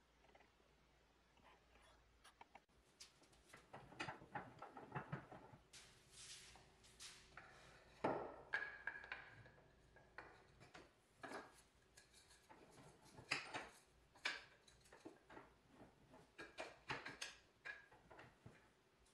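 Wooden jaw pads and a steel axe head being handled and fitted into a bench vise: scattered light knocks, clacks and scrapes of wood and metal, the loudest about eight seconds in.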